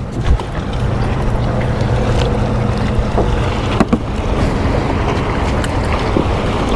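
Wind buffeting the microphone and water lapping against the hull of a small skiff, a steady low rumble, with a couple of light knocks about four seconds in.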